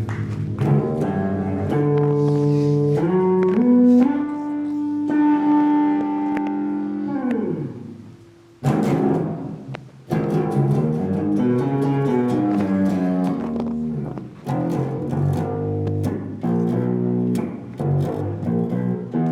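Heavy metal music led by electric guitar. Long held guitar notes, one sliding down in pitch, give way after a brief drop about eight seconds in to a fast riff.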